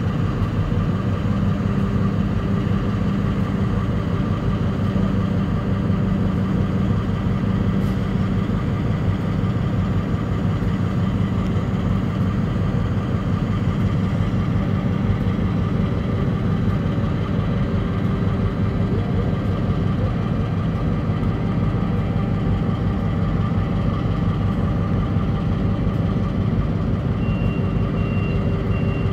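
Diesel switcher locomotive's engine idling, a steady low hum with no change in speed. A thin high tone joins near the end.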